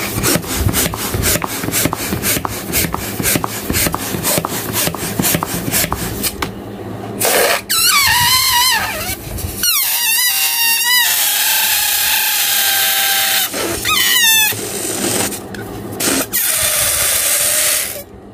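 A latex balloon being pumped up in a quick, even run of short puffs for about the first seven seconds. Then air is let out through its stretched neck, squealing in wavering, warbling tones with a few steadier held notes as it deflates.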